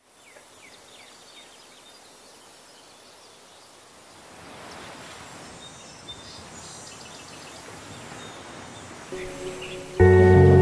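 Countryside ambience: birds chirping over a steady high insect drone. Near the end, music comes in, swelling briefly and then starting loud and full.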